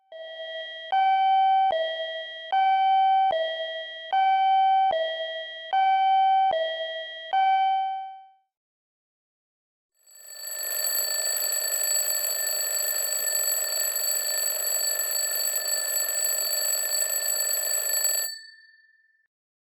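Railroad crossing warning signals: first an alternating two-tone ding-dong, a higher and a lower tone taking turns about every 0.8 seconds, for about eight seconds. Then, after a short gap, a steady continuous ringing alarm for about eight seconds that cuts off suddenly.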